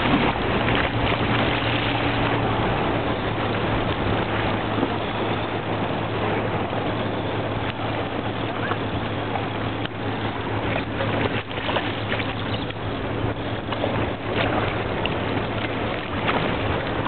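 Steady low engine hum, like a boat motor running nearby, under a constant wash of water against the jetty rocks and wind on the microphone.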